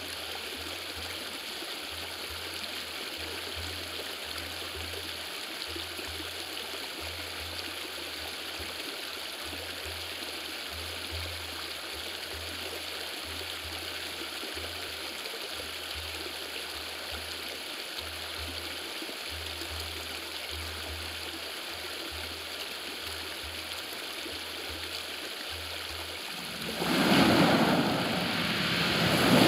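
Running river water, a steady flowing rush, with a low throb coming and going underneath. About 27 seconds in, a much louder surge of rushing water swells up.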